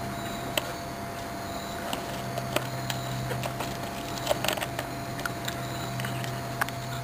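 A raccoon crunching hard acorns: irregular sharp cracks and clicks of shell between its teeth, with a quick cluster of cracks about four and a half seconds in, over a steady low hum.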